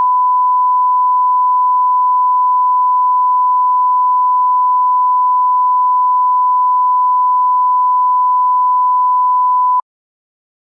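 A steady electronic beep: one pure, unchanging tone held for nearly ten seconds, then cut off suddenly.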